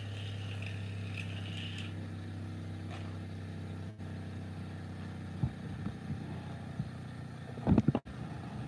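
Bench grinder running with a steady low motor hum, sandpaper fitted to its shaft in place of a grinding wheel. A light scraping hiss in the first two seconds as the sandpaper's end is worked flat, and a few handling knocks near the end.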